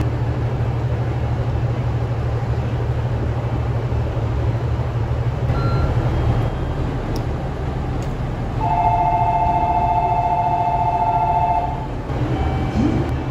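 KiHa 85 diesel railcar engines idling with a steady low hum. About eight and a half seconds in, an electronic two-tone departure bell rings steadily for about three seconds.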